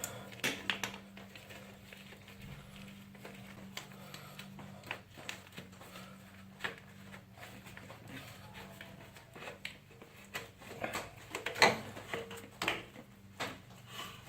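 Scattered clicks and light knocks of hand work on a motorcycle swingarm: a bolt being backed out with an Allen key and the plastic chain guide worked free. The sharpest knocks come near the end.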